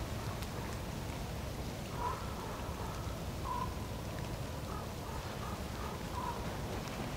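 Faint, short bird calls, a few scattered notes from about two seconds in, over a steady low background rumble.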